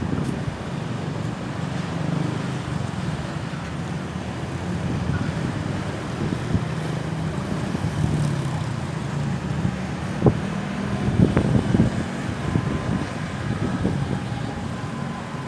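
Road traffic going by with a steady low rumble, with a few sharp knocks about two-thirds of the way through.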